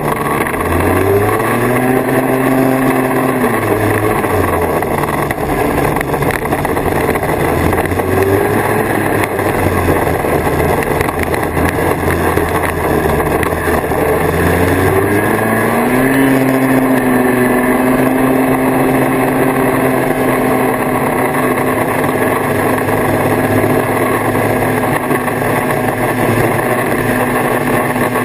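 1979 Kawasaki Invader 440 snowmobile's two-stroke engine running under way on the trail. The revs climb about a second in, ease off around four seconds, climb again around fifteen seconds and then hold steady.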